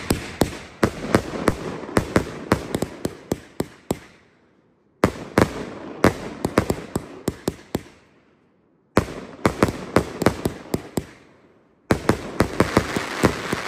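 Aerial fireworks bursting: rapid runs of sharp crackling reports, several cracks a second. They come in four runs that each start suddenly and fade into short lulls.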